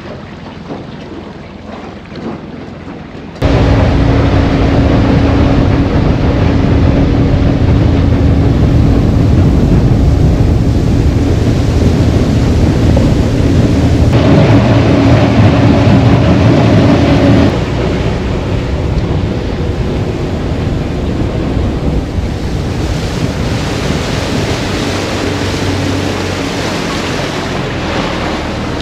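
Boat under way at speed on a lake: Honda outboard motor running steadily under the rush of water along the hull and heavy wind on the microphone. Quieter for the first few seconds, then suddenly much louder, easing a little later on.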